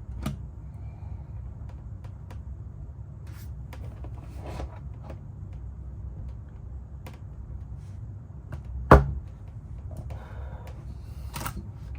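Light clicks and handling of a Bostitch three-hole punch being pressed down on a stack of 12 sheets of printer paper, which it fails to punch through. One sharp knock about nine seconds in, over a steady low hum.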